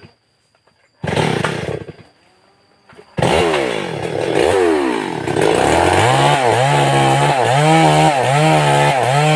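An old chainsaw engine starts about three seconds in, after a short loud burst about a second in, and then runs with its pitch rising and falling in a regular cycle about every 0.7 seconds.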